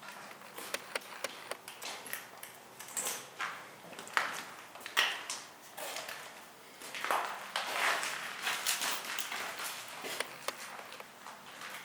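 Footsteps crunching and scuffing at an irregular pace, with scattered sharp clicks and knocks.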